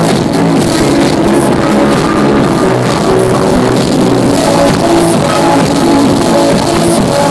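Loud electronic dance music from a live DJ set, a minimal techno track with a steady beat and short repeating bass notes, played over a nightclub sound system.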